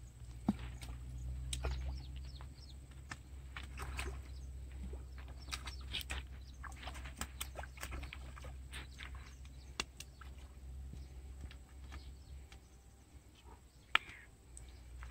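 A hooked fish splashing and thrashing at the water's surface in irregular bursts, with a few sharp clicks, over a low steady rumble.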